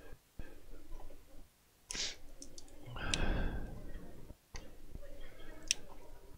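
Light clicks and rustling of fingers handling the wires inside an opened soldering station's plastic case, with a louder rustle about three seconds in.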